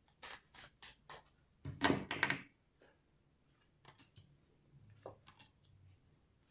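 A deck of tarot cards being shuffled by hand, with a quick run of clicks and then a louder rustle of cards about two seconds in. Softer taps follow as cards are dealt one by one onto a table.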